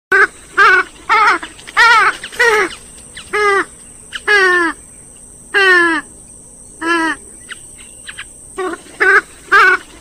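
Swamphen calling: a run of loud, harsh calls, each a fraction of a second with a falling or arched pitch. They come in quick succession at first, then as a few longer drawn-out calls with gaps between, and a fresh quick burst near the end.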